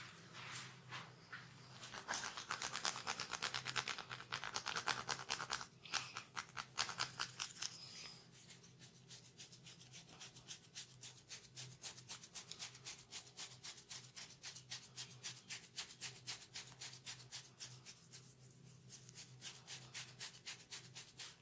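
Quick, rhythmic scratching and rubbing strokes of a masseur's hands, about four or five a second; louder for the first several seconds, then softer. A faint steady hum runs underneath.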